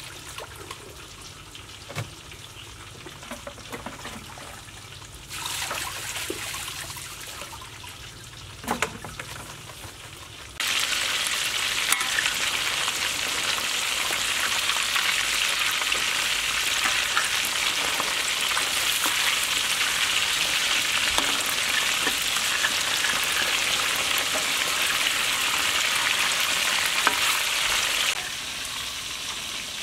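Pieces of snakehead fish deep-frying in hot oil in a wok: a loud, steady, dense sizzle that starts abruptly about ten seconds in and cuts off near the end. Before it come quieter water and handling sounds with a few light clicks, as water mimosa is rinsed in a plastic basin.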